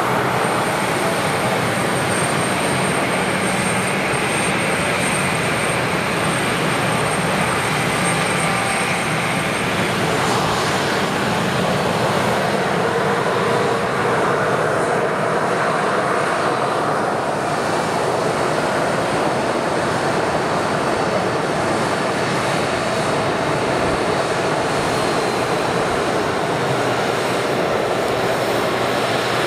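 Embraer 195 airliner's twin GE CF34-10E turbofans running at taxi power as it rolls past, a steady jet rush. A thin high whine sounds over it and fades after about ten seconds.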